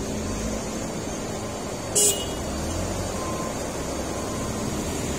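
Heavy truck diesel engines running at low speed as a truck creeps forward, with one short, loud hiss of air about two seconds in.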